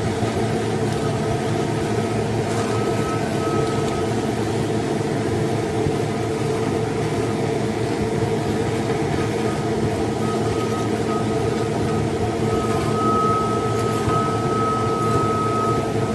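The small motor and fan of a homemade vacuum cleaner running steadily, a hum with a thin high whine over it.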